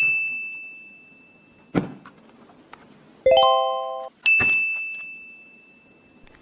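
A high, bell-like ding that rings out and fades over about two seconds, a short dull knock, a brief held tone lasting under a second, then a second identical ding fading away.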